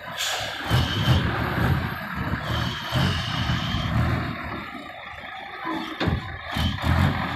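Large diesel truck engine running close by, with an uneven low rumble and two brief high squeals in the first half.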